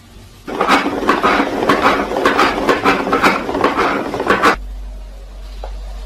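A rapid run of hard clattering and ratcheting clicks, dense and loud, lasting about four seconds and stopping abruptly.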